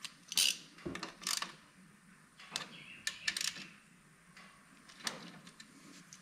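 Scattered metallic clicks, clinks and short rustles of hand tools and bolts being handled and turned at a three-wheeler's engine side cover. The loudest burst comes about half a second in, and a few more follow at uneven intervals.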